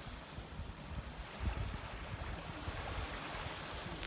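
Small waves washing onto a sandy beach, with wind buffeting the microphone in uneven gusts.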